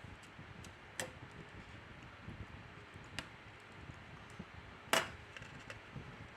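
Faint clicks and taps of small tools and smartphone parts being handled during reassembly: a few sharp clicks about one, three and five seconds in, the last the loudest, with lighter ticks between.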